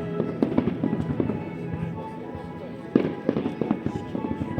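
Aerial fireworks shells bursting in a rapid series of sharp bangs, the loudest about three seconds in, with music playing underneath.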